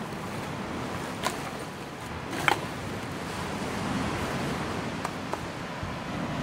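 Steady wash of wind and surf, broken by a few short sharp clicks as gear is stowed in a bag on the 4x4's spare wheel: one about a second in, one at two and a half seconds, and a quick pair just after five seconds.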